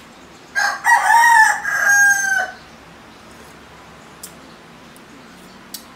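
A rooster crows once, a single call about two seconds long that rises and then holds level before cutting off. Two faint clicks follow later.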